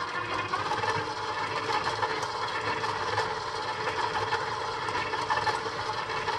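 KitchenAid stand mixer's motor running steadily on low, beating cream cheese in a stainless steel bowl.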